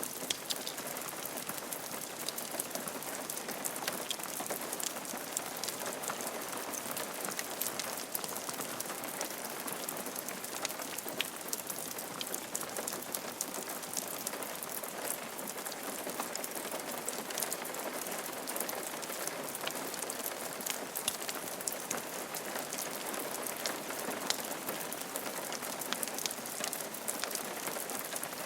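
Steady rain falling on a roof, an even hiss of rain dotted with many small drop ticks.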